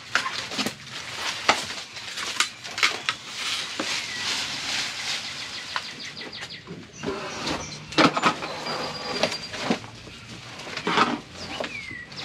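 Cardboard box and packing material being pulled apart and handled during unboxing: continuous rustling and scraping with scattered knocks and clicks.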